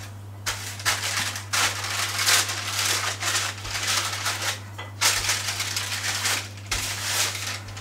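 Wooden rolling pin rolling out stiff, chilled biscuit dough on parchment paper. The paper rustles and crinkles with each back-and-forth stroke, a little more than one stroke a second.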